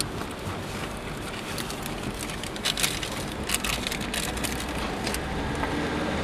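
Paper shop receipt crinkling as it is unfolded by hand: bursts of sharp crackles over a few seconds, over a steady low hum.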